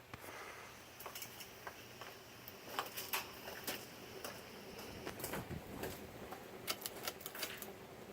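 Hunter Original ceiling fan running with a faint steady hum, over which come irregular light clicks and ticks.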